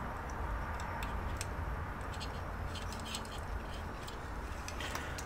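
Faint scattered small clicks and handling noise from gloved hands positioning jumper wires on a cable modem's circuit board, over a steady low hum.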